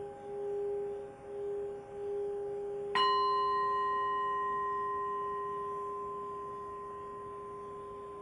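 A metal singing bowl rubbed around its rim sings a steady low tone that swells and fades about once every three-quarters of a second. About three seconds in, a second, higher-pitched singing bowl is struck once, and both bowls ring on, slowly fading.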